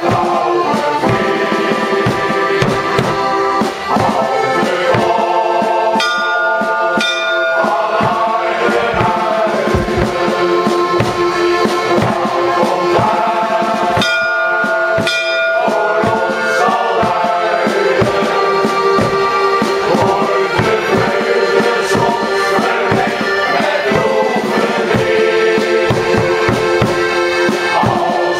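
A men's choir singing with piano accordion accompaniment and a steady bass-drum beat.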